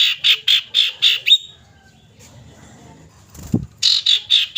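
Common iora (cipoh) calling: a rapid run of harsh, sharp notes, about five a second, stops after about a second and a half, and a second short run starts near the end. A brief low thump comes in the pause between the runs.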